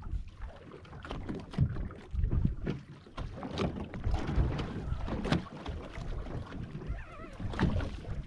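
Water slapping and lapping against the hull of a small anchored powerboat, in uneven swells, with wind buffeting the microphone and a few sharp clicks.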